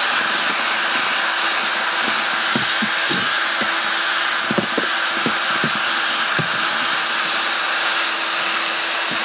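Electric drill driving a paddle mixer through aircrete foam slurry in a plastic tub, running steadily at speed with a constant motor whine. A few short knocks sound through it.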